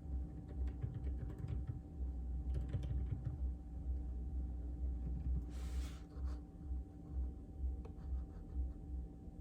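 Typing on a mechanical keyboard with Outemu Silent Peach linear switches: a steady, irregular run of soft, muffled keystrokes. There is a brief rustle a little past halfway.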